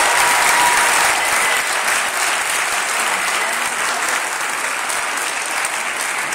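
Crowd of a few dozen people applauding, a dense, even clapping that eases off slightly toward the end.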